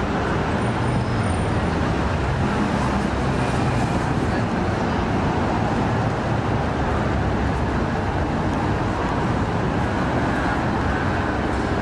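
Steady traffic noise from cars on a busy city street.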